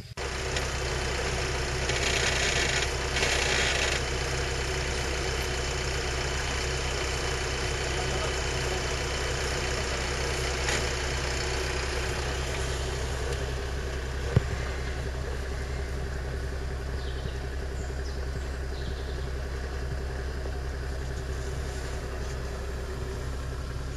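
Off-road 4x4's engine heard from inside the cab, running steadily at a low, unchanging speed as the vehicle crawls along a forest track. A single sharp knock about fourteen seconds in.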